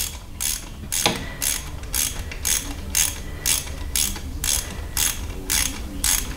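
Hand ratchet wrench clicking in short bursts about twice a second as it is swung back and forth, running down a bolt.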